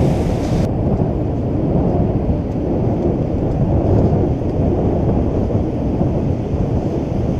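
Steady low rumble of wind buffeting the camera microphone, mixed with the noise of the surf. The higher hiss drops away sharply less than a second in.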